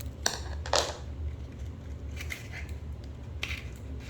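Scissors snipping open a plastic toy packet: two sharp snips within the first second, then a few fainter cuts and rustles.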